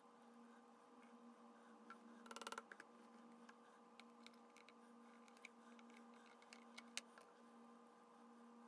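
Near silence: a faint steady electrical hum with scattered light ticks, and a brief quick rattle of ticks a little over two seconds in.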